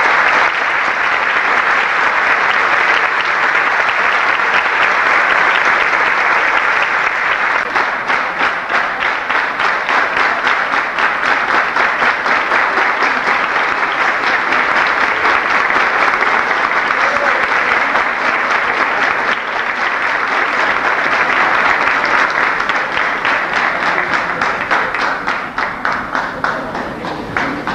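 Theatre audience applauding a choir; about eight seconds in, the clapping falls into a steady shared rhythm, and it tapers off near the end.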